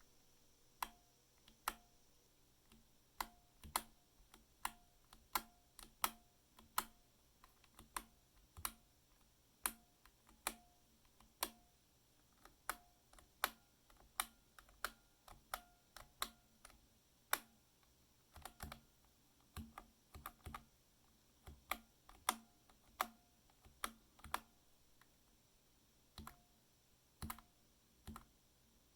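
ProtoArc MECH K300 mechanical keyboard keys pressed one at a time, about one to two clicks a second, many followed by a short metallic ring. The ring comes on the key release and is what the reviewer faults: a metallic release sound that typists will find disappointing.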